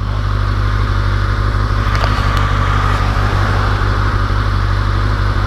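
2013 Kawasaki Ninja 636's inline-four engine idling steadily and loudly through its stock exhaust, fully warmed up.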